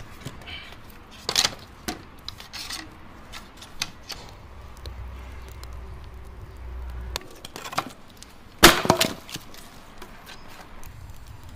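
Firewood being handled at a brick stove's firebox: scattered knocks and cracks of sticks and logs, with one loud clatter of wood near the end.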